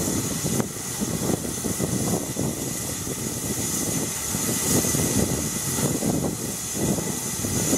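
A steam locomotive, a BR Standard 2MT 2-6-0, gives off a steady hiss of escaping steam, heard under a heavy, gusty wind rumble on the microphone.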